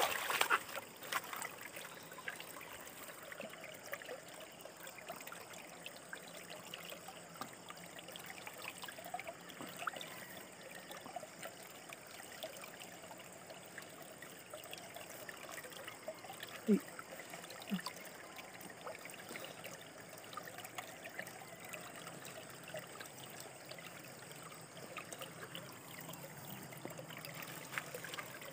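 Shallow stream water flowing and trickling steadily past rocks along the bank. Two brief low sounds stand out just past halfway.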